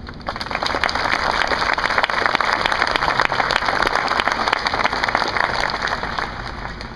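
Audience applauding: a dense patter of many hands clapping that breaks out suddenly and tapers off near the end.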